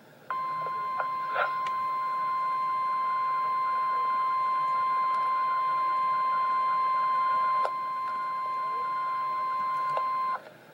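NOAA Weather Radio 1050 Hz warning alarm tone: one steady high beep held about ten seconds, then cut off sharply. It is the alert signal that opens an emergency broadcast, here a severe thunderstorm watch.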